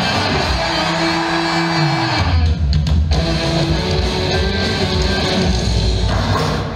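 Upbeat song with guitar, played from a video trailer over a hall's loudspeakers; an instrumental stretch with no singing.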